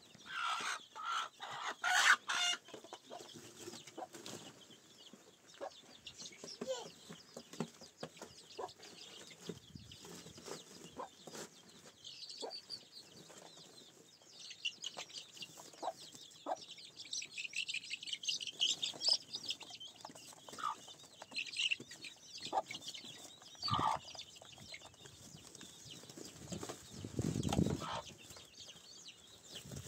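Chickens clucking on and off, with scattered short calls. A cluster of sharp knocks about two seconds in is the loudest moment, and a lower sound lasts about a second near the end.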